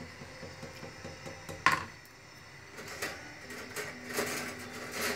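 Black ladle stirring a thick mung bean soup in a stainless-steel pot, with one sharp knock of the ladle against the pot about a second and a half in, then lighter clinks and scrapes.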